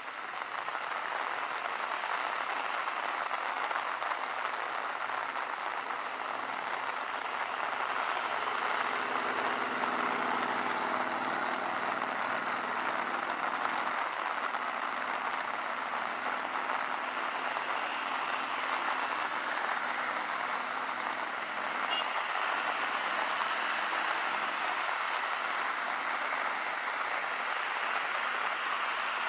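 Steady rain falling, an even hiss throughout. A motor vehicle's engine hum rises and passes about a third of the way in.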